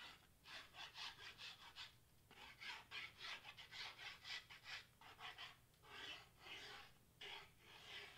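Faint scratchy rubbing strokes of a glue bottle's tip drawn across cardstock as lines of glue are laid down. The strokes come in short runs of about three a second, with brief pauses between them.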